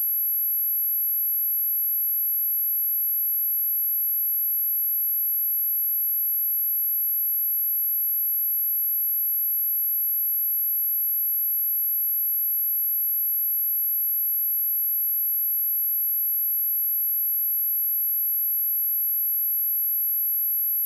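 A pure 11656 Hz sine-wave test tone, high-pitched and held steady at one level, used for testing speakers and for shaking water and dust out of them.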